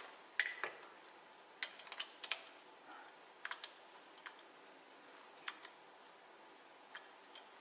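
Faint, irregular metallic clicks of a lathe's four-jaw scroll chuck as its jaws are tightened with a T-handle chuck key onto a wooden bowl.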